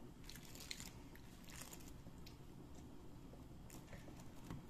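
Faint small clicks and crinkling of paper cupcake liners and a table knife as brownie squares are handled and pressed, a few scattered taps in the first two seconds and another pair near the end.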